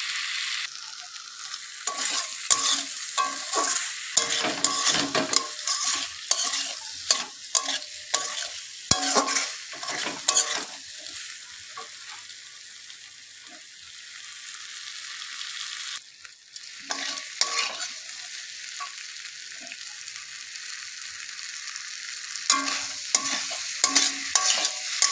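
Potatoes and ground spices frying in oil in a metal kadai, sizzling throughout, with a spatula scraping and knocking against the pan in quick strokes as the masala is stirred and fried down. Around the middle the stirring pauses for a few seconds and only the sizzling is heard.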